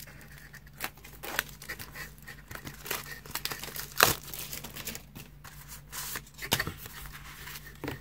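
Paper notebooks and their packaging being handled: irregular rustling and crinkling with scattered sharp clicks and taps, the sharpest about four seconds in.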